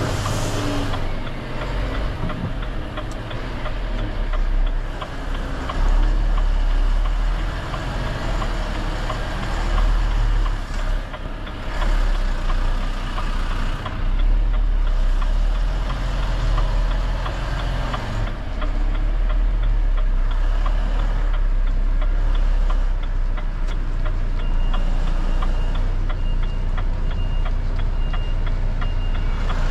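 Renault T High 520 truck's six-cylinder diesel engine running with a steady low rumble. Near the end a reversing alarm starts, with short beeps repeating about once a second.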